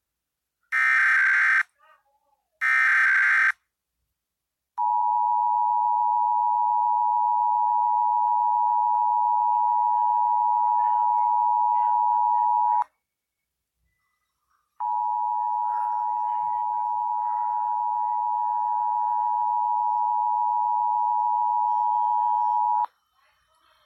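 Emergency Alert System test broadcast. First come short buzzy bursts of SAME digital header data, about a second each with a second's gap between them. Then comes the two-tone attention signal, 853 and 960 Hz sounded together as one steady harsh tone, lasting about eight seconds. It stops for two seconds and sounds again for another eight.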